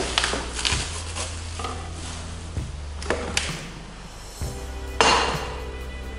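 Packaging and glassware handling as a glass-ceramic cooking pot is lifted out of its cardboard box and bubble wrap, with rustling and a few light knocks. A louder rustle and knock about five seconds in comes as the pot is set down on the table. Quiet background music plays underneath.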